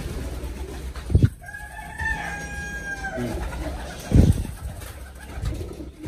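A rooster crows once, a single held call of about a second and a half that drops slightly at the end. Two dull low thumps come about a second in and about four seconds in.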